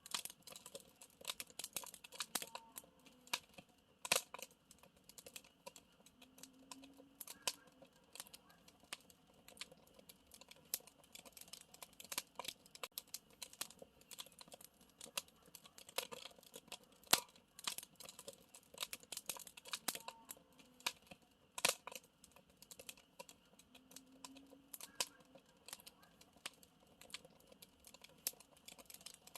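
Bonfire crackling: a steady run of irregular sharp snaps and pops over a faint low hiss.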